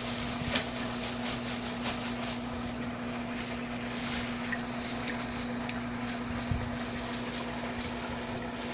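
A steady mechanical hum holding one constant low tone over a soft hiss, with a few faint clicks and a small knock about two-thirds of the way through.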